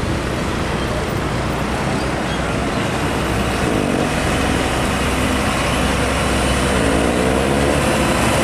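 Hino 500 truck's diesel engine running under load as it pulls a loaded trailer toward the camera, growing a little louder as it nears, with a few brief rises and falls in pitch, amid road traffic.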